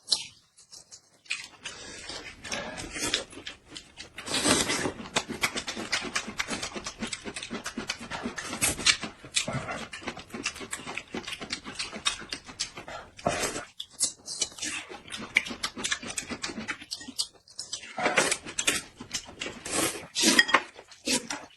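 Close-miked eating sounds: wet chewing and lip-smacking, a dense run of irregular clicks and crackles that pauses briefly twice.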